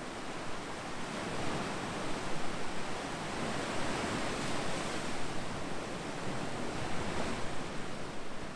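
Ocean waves: a steady rush of surf that swells and eases slightly.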